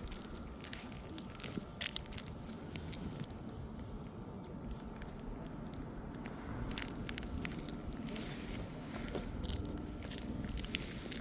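Scattered sharp clicks and crunches over a steady low rumble: shingles being handled or stepped on during a roof repair.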